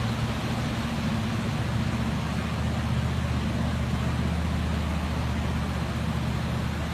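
A motor vehicle's engine running steadily, a low hum with an even hiss over it.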